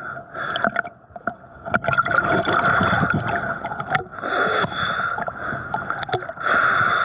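Lake water splashing and gurgling close to the microphone from open-water swimming strokes, in uneven sloshes with a couple of sharp knocks.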